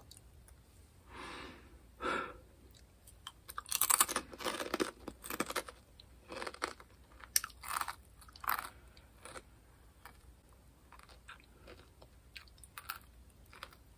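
Crunchy snack chips being bitten and chewed close to the mic. An irregular run of loud crunches, heaviest a few seconds in, tails off into softer chewing.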